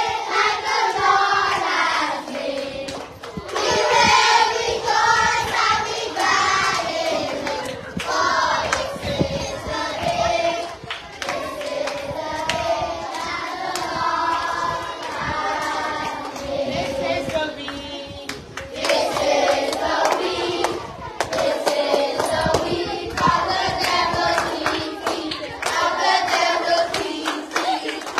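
A group of children singing a gospel song together, with hand clapping running through it.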